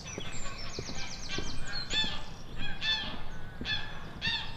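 Several birds calling and singing: short arched calls repeat about once a second, mixed with fast high trills from songbirds. Faint footsteps tap on a wooden footbridge.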